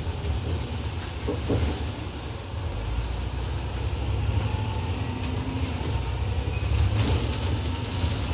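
New World First Bus double-decker 6017 under way, heard from the upper deck: a steady low engine drone with road rumble. There is a sharp click about seven seconds in.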